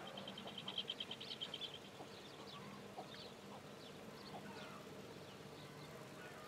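Faint birdsong: a rapid high trill through the first two seconds, then scattered short chirps, over a faint low steady drone.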